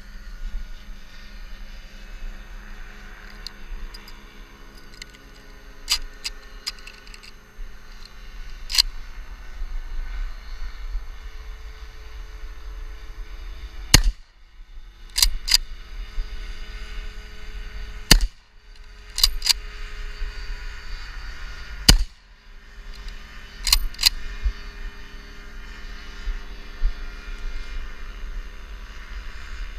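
Three rifle shots from a Schmidt-Rubin Model 1889, a straight-pull rifle, about four seconds apart. Each shot is followed about a second and a half later by two metallic clicks as the straight-pull bolt is cycled. There are lighter handling clicks in the first several seconds, and a steady low rumble underneath.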